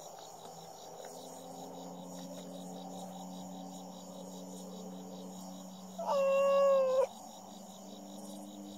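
An abandoned cat gives one loud, drawn-out meow about six seconds in, lasting about a second, over a steady background of crickets chirping.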